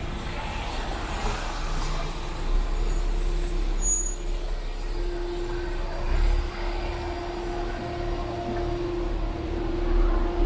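City street noise: a motor vehicle running close by, a steady hum coming in about halfway through, over a constant low rumble.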